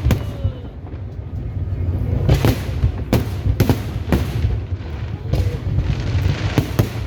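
Aerial fireworks bursting: a run of sharp bangs about every half second, over a steady low rumble.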